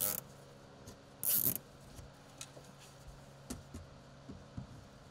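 Gloved hands handling plastic footwell trim, a routing clip and wiring: a brief scrape at the start, a louder rustling scrape about a second in, then several small light clicks.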